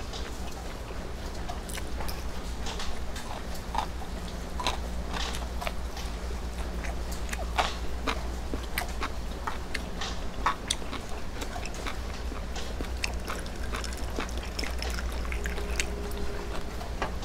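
Close-up chewing and biting of food, with many scattered small crunchy clicks, over a steady low hum.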